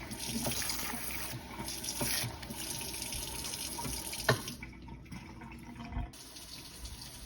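Water running from a kitchen tap into a container. A sharp knock comes about four seconds in, then the flow pauses for about a second and a half and starts again.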